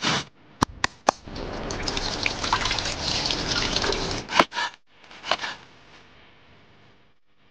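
Water poured from a bowl splashing into a stone sink for about three seconds, for rinsing. A few short sharp clicks come before it and a couple of brief knocks after.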